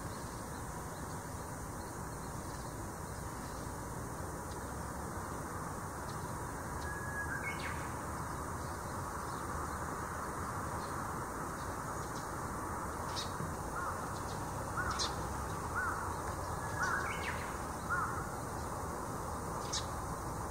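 A crow cawing about five times, roughly a second apart, in the second half, with a single call earlier on. A few short high chirps from small birds come in between, over a steady outdoor background hiss.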